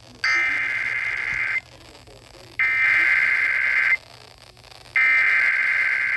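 Emergency Alert System SAME header: three identical bursts of high, screechy digital data tones, each about a second and a half long with about a second's gap between, over a faint hiss and hum. It is the coded header that opens a new alert, here a severe thunderstorm warning.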